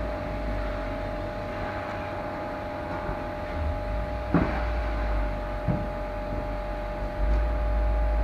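Steady low rumble with a constant hum, broken by two short sharp knocks, about four and a half seconds in and again a second later.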